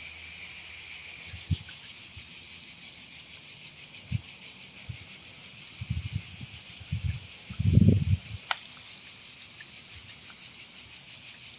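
Steady high-pitched, rapidly pulsing drone of cicadas in summer heat. A few low bumps of handling on the phone's microphone, the loudest about eight seconds in.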